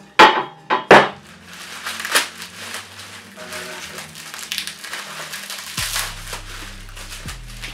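Plastic bubble wrap being pulled off and crumpled by hand, a dense rustling crinkle, with a few loud sharp cracks in the first second.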